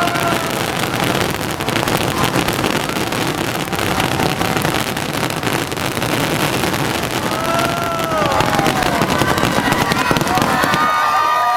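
A fireworks display in a dense, continuous stretch of rapid crackling and bangs. Crowd voices begin to whoop and cheer near the end.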